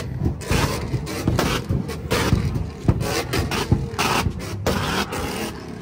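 Ford Mustangs' exhausts banging and crackling in rapid, irregular pops as they spit flames, over the low rumble of the engines.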